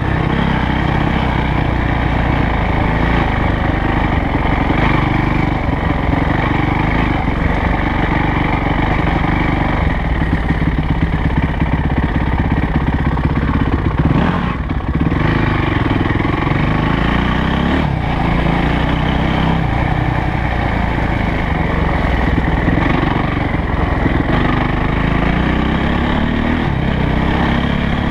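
Yamaha YZ450F's single-cylinder four-stroke engine running under way as the bike is ridden, its revs rising and falling several times with the throttle and gear changes.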